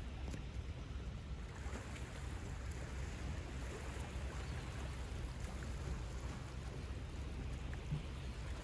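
Calm sea washing steadily onto a pebble shore, an even hiss with a low rumble underneath.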